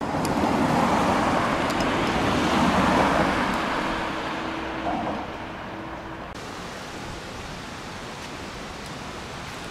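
A car driving past on a mountain road: tyre and engine noise swell over the first three seconds and fade away. After an abrupt change at about six seconds, only a quieter, steady road background remains.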